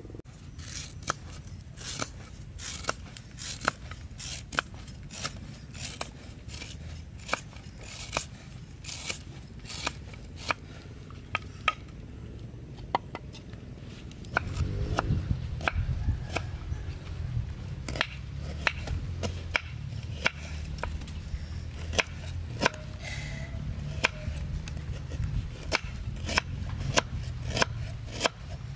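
Knife slicing fresh roots and herbs held in the hand: a run of sharp cuts, about one or two a second. A low rumble joins about halfway through.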